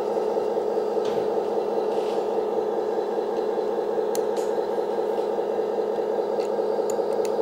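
A steady mechanical hum throughout, with a few faint light clicks as metal hose fittings are handled.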